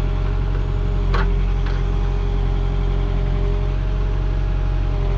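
JCB 3CX Compact backhoe's diesel engine running steadily, with a faint steady whine above it. Two short sharp clicks come a little over a second in.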